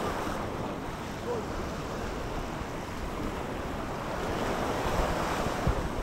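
Small waves washing up on a sandy shore in a steady hiss of surf, with wind buffeting the microphone in a few low thumps near the end.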